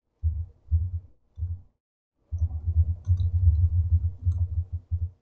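Typing on a computer keyboard, heard mostly as dull low thumps with a few faint sharp key clicks. A few short bursts come first, then steadier typing from about two seconds in.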